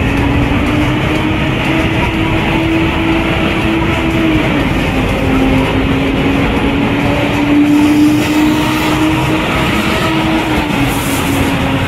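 Busy city road traffic: a steady rush of passing vehicles over a heavy engine's hum, which drops in pitch about four seconds in, rises a little and drops again near the end.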